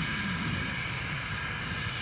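1897 Avonside 0-4-0 saddle tank steam locomotive working along the line with its coaches: a steady low rumble with a hiss above it.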